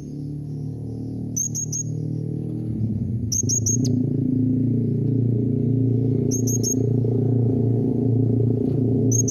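Blue-crowned hanging parrot (serindit) calls: short, sharp, high chirps in quick clusters of three or four, repeated every two to three seconds. Beneath them runs a steady low drone that grows louder about three seconds in.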